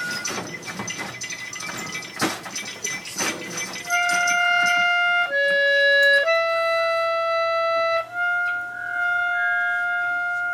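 Several sharp knocks over noisy clatter, then a wind instrument plays long held notes that change pitch a few times.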